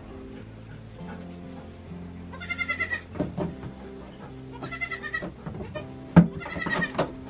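Nigerian Dwarf goat kids bleating: three short, quavering bleats, over steady background music. A sharp knock about six seconds in is the loudest sound.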